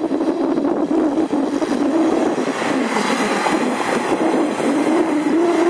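Off-road vehicle engine held at high revs under load, its hum wavering and rising slightly near the end, while a Lada Niva stuck in deep snow is towed out on a strap.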